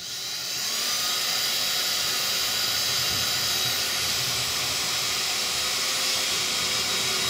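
Cordless drill running continuously, driving a self-drilling screw through an aluminium drip bar into a uPVC door. The motor whine rises in pitch over the first second as it spins up, then holds steady.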